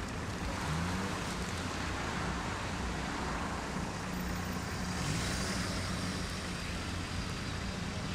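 Road traffic: cars and a van driving past at close range, engines rising in pitch as they pull away, about a second in and again about five seconds in, over steady tyre and road noise.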